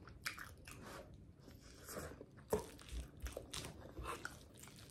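Close-miked chewing and wet mouth smacking while eating chicken Alfredo ramen, in a run of irregular short clicks with a sharper smack about halfway through.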